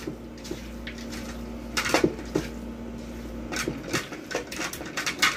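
Raw chicken pieces being mixed by hand in a metal pot: irregular clicks and knocks of the meat and fingers against the pot.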